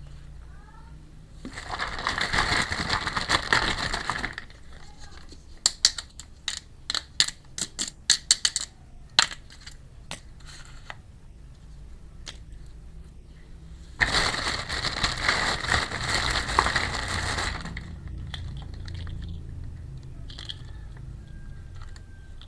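Plastic packaging crinkling and rustling as a miniature toy kitchen set is unwrapped, in two stretches of about three seconds each. Between them comes a run of small sharp clicks and taps of small plastic pieces being handled.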